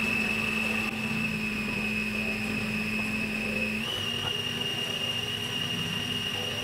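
Kenwood food processor motor running steadily, blending chickpeas into hummus, with a constant high whine over a low hum. About four seconds in, the whine steps slightly up in pitch.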